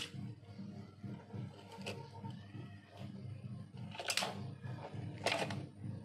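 Die-cast toy cars and a plastic toy wheel loader clattering as they are pushed off a board and tumble into a metal bowl of foam beads: a few sharp clacks, the loudest about four and five seconds in.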